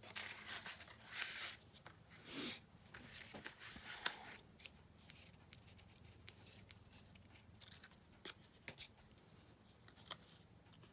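Faint rustling and light taps of die-cut cardstock pieces being handled and arranged on a paper postcard over a craft mat. There are a few soft swishes in the first couple of seconds and a sharp click about four seconds in.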